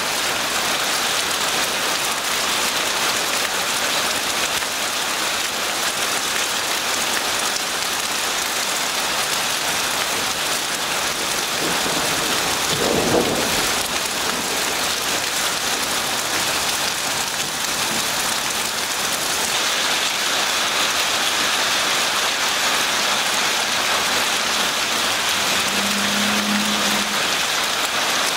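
Steady hiss of rain mixed with small graupel pellets falling on the pavement and pine-needle ground.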